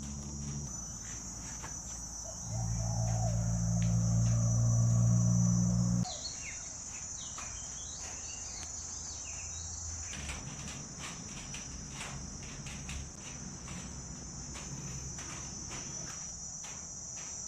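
Insects chirring in a steady, continuous high trill. Under it, a low hum grows louder a couple of seconds in and cuts off suddenly about six seconds in, with faint scattered clicks.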